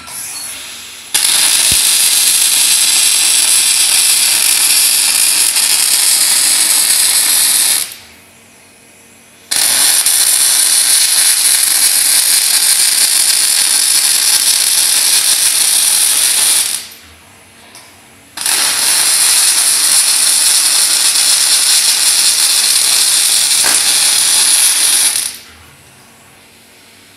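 OTC welding robot's MIG arc welding a mild steel workpiece: three steady weld runs of about seven seconds each, with short quieter gaps between them as the torch repositions.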